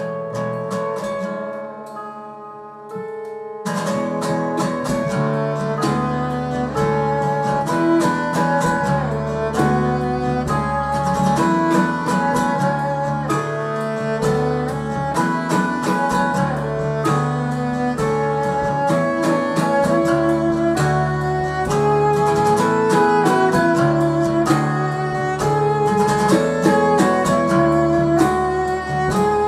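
Background music: guitar with bowed strings, starting sparse and filling out with a steady beat about three and a half seconds in.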